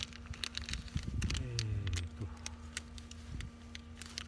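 Scattered light clicks and taps over a steady low hum, with wind rumbling on the microphone.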